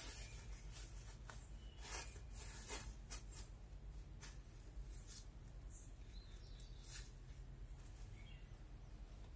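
Faint, scattered scrapes and knocks as bricks are shifted by hand on plastic sheeting, most of them in the first three seconds, with a few faint bird chirps.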